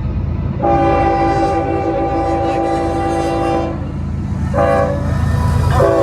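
Union Pacific freight locomotive's air horn sounding a chord: one long blast, then a short one, then another long one beginning near the end, over the steady low rumble of the diesel locomotives. The long-short-long run is the tail of the signal sounded for a grade crossing.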